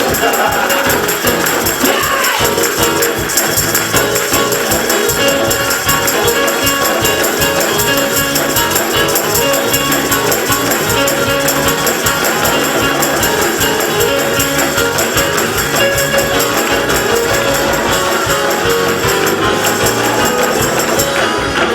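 Gospel music with a tambourine shaken in a fast, steady rhythm over sustained chords.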